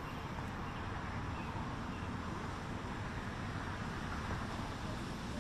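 Steady hum and hiss of road traffic, with no single event standing out.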